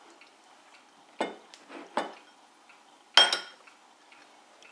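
A spoon and a ceramic bowl clinking three times, the last clink the loudest, with a short ring.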